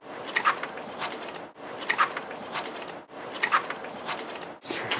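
A short snippet of high chirps and squeaks, played over and over in a loop about every second and a half, each repeat cut off sharply.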